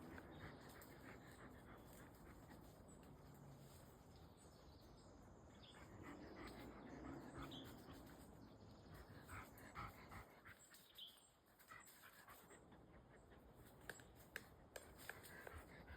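Golden retriever panting, faint, with a few sharp ticks near the end.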